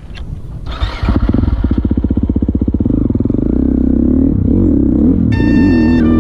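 KTM 350 XC-F single-cylinder four-stroke dirt bike engine accelerating away, its firing pulses quickening, then its note rising and falling with the throttle. Music comes in about five seconds in.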